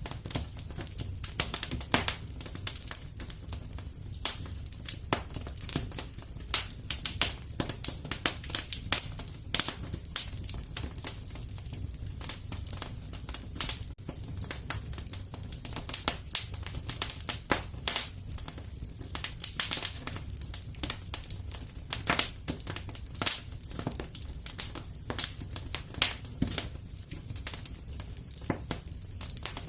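Wood fire burning in a fireplace: a steady low rumble with frequent irregular crackles and pops, some much louder than others.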